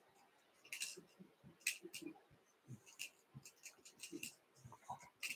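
Faint, irregular clicks and scratchy ticks of tying thread and fingers working a fly held in a fly-tying vise.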